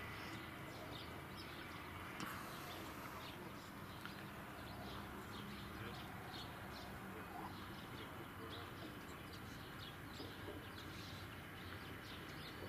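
Faint birds chirping, many short calls scattered throughout, over a steady outdoor background noise.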